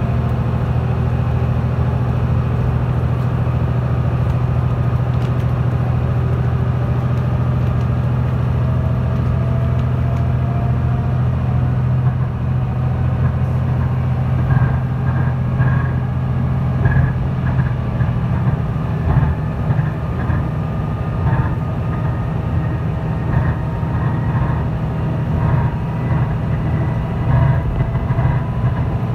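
YR-2000 diesel railcar heard from inside: its diesel engine running with a steady low hum under the noise of the wheels on the rails. About 12 seconds in the engine note drops away and becomes uneven, and the rest is filled with irregular clicking and clattering from the running gear.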